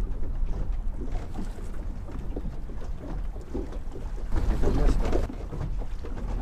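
Wind buffeting the microphone over water lapping against the hull of an anchored boat, with no engine running. A louder gust comes about four and a half seconds in and lasts about a second.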